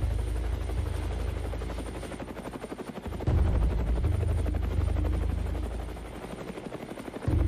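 Helicopter rotor chopping with a fast, even beat over a low drone. The sound drops back and then comes in louder suddenly about three seconds in, and again near the end.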